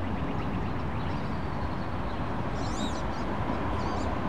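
Wood ducks giving thin, high, squeaky rising-and-falling calls, a short cluster about two and a half seconds in and a fainter pair near the end, over a steady low background rush.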